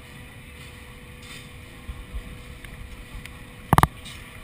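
Sling-ball ride capsule with a steady low rumble of wind and machinery, a few low thumps about two seconds in, then a quick cluster of loud, sharp metallic clanks near the end as the capsule is fired upward.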